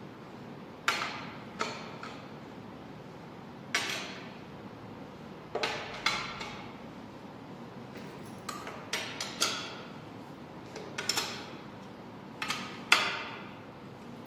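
Hand wrench and bolts clinking against an engine oil pan as its bolts are fitted: about a dozen sharp metallic clinks and short rattles, irregularly spaced, each ringing briefly.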